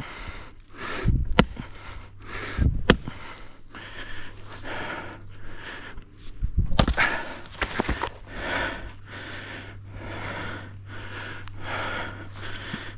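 Fast, heavy breathing close to the microphone, about one and a half breaths a second, with a few sharp knocks of wood in the first seven seconds and a steady low hum underneath.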